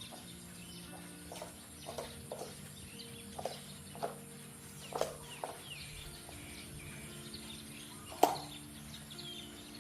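Chickens clucking in short, separate calls every second or so, with one sharp click about eight seconds in. Faint sustained tones that step in pitch run underneath.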